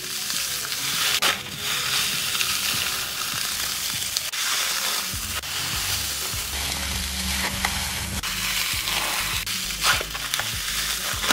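Dense crackling and crunching of a balloon packed with small foam beads as it is squeezed and kneaded in the hands, with the bass of background music coming in about halfway through.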